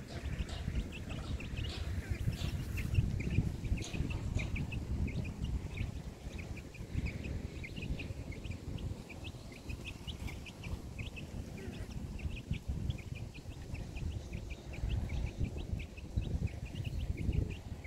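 Wind rumbling on the microphone, loudest a few seconds in and again near the end, with a steady stream of short, high chirps, several a second.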